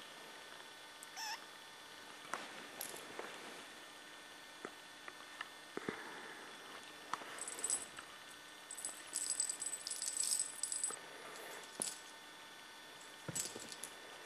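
Light metallic jingling of a small metal chain in two short bursts a little past the middle, among scattered soft taps and rustles.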